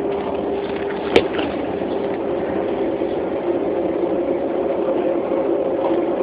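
Bus engine running, a steady drone with a low hum that dips slightly in pitch partway through, and a single sharp click about a second in.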